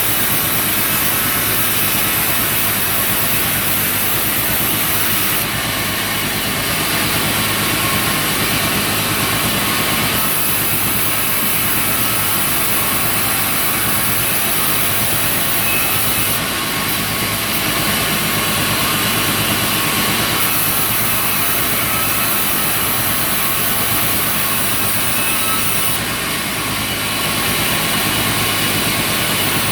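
Sawmill machinery running steadily and loudly, with a low engine hum under a high hiss. The hiss grows stronger and weaker every five seconds or so.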